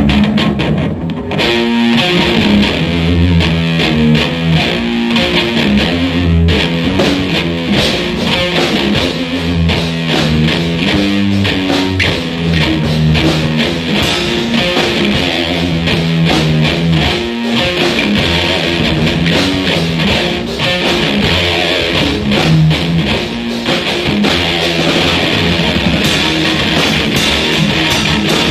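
Instrumental guitar music: electric guitar playing riffs over bass guitar, without vocals.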